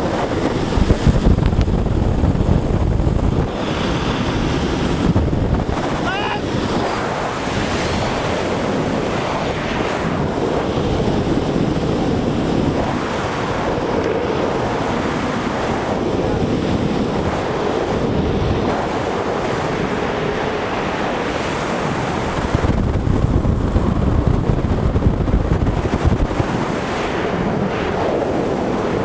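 Wind buffeting the microphone over a steady rush of skateboard wheels on the road at downhill speed. The buffeting is heaviest at the start and again about three-quarters of the way through, and a brief wavering tone comes about six seconds in.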